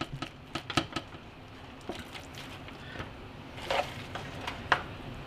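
A silicone spatula scooping moist stuffing and scraping and tapping against a foil roasting pan and a pot: scattered soft scrapes and clicks, with two sharper knocks about four seconds in.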